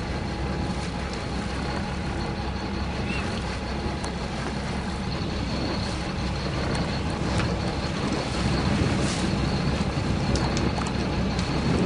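Boat engine idling steadily, out of gear, with wind and water noise over it.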